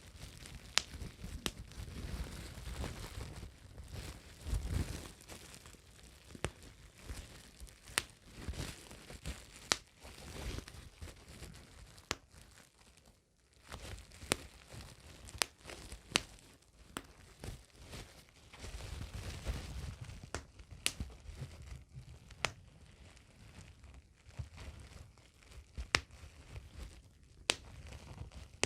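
Bubble wrap being crinkled and handled close up, with scattered sharp pops at irregular intervals and a brief quieter pause about halfway through.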